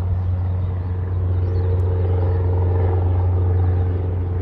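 Wind buffeting the microphone: a steady low rumble, with a faint steady hum above it.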